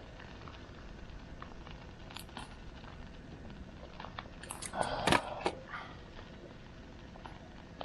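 Light clicks and a short clatter of cookware and utensils being handled on a camp tray, loudest about five seconds in, over a steady low outdoor background.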